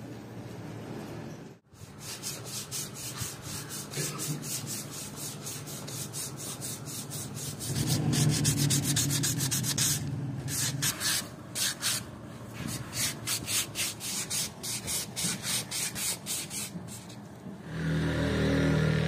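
Quick, regular back-and-forth abrasive strokes on a wooden axe handle as it is smoothed by hand, several strokes a second. Near the end the strokes stop and a steady low motor hum starts.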